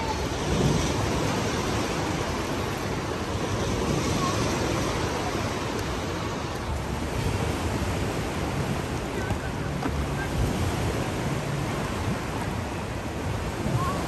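Artificial waves in an indoor wave pool: a steady wash of churning, splashing water.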